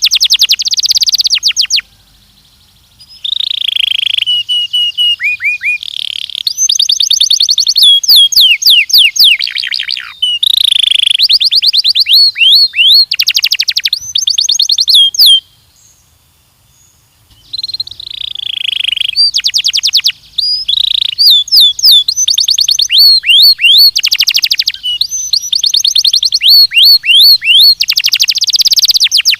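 Belgian canary singing: fast trills and rolls of rapidly repeated notes, many falling in pitch, with a short pause a couple of seconds in and a longer pause about halfway through.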